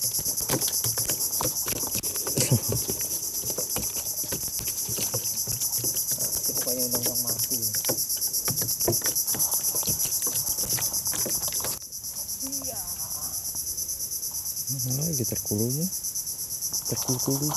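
Steady chorus of insects, a high shrill pulsing rapidly, with scattered knocks and clicks over it; the chorus dips briefly about twelve seconds in.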